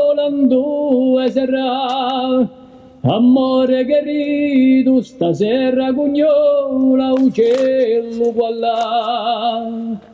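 Chant-like singing in long held notes with vibrato, pausing briefly about two and a half seconds in and dipping again near five seconds.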